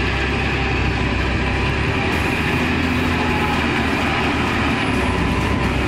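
Heavily loaded logging truck's diesel engine running steadily, a loud low rumble with a broad mechanical noise above it.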